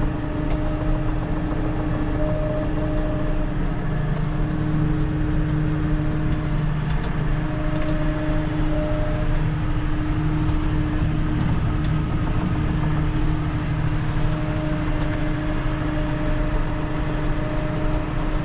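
Tractor engine running at a steady speed while pulling a crop sprayer across the field, a constant drone with no change in pitch.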